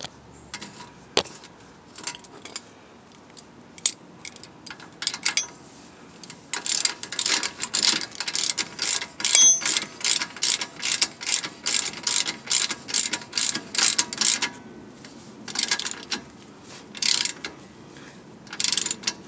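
Hand socket ratchet clicking as the lower shock-mount bolt is run in and snugged down, in quick repeated strokes for about eight seconds from around six seconds in, then three short bursts near the end. Before that, scattered light clicks as the bolt is started by hand.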